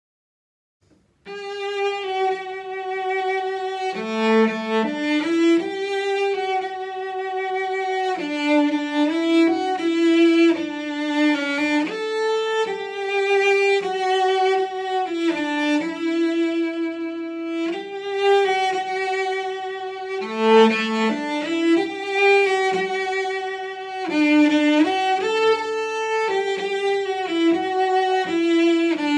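Solo cello played with the bow: a slow melody of long held notes with vibrato, starting about a second in after silence, with a few moments where two strings sound together.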